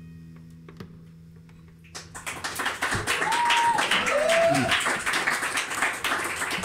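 An acoustic guitar's final chord rings out and fades. About two seconds in, a small audience breaks into applause with a few cheering whoops, which are the loudest sound.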